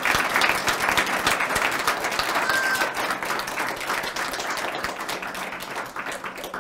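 An audience applauding with many hands clapping. The applause gradually dies down toward the end.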